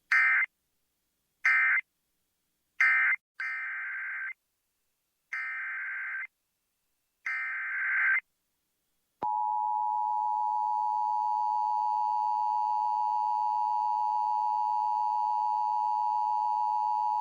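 Emergency Alert System tones. First come six bursts of SAME digital data screech: three short end-of-message bursts, then three longer header bursts. About nine seconds in, the steady two-tone EAS attention signal (853 and 960 Hz together) starts and holds for about eight seconds, announcing the next alert.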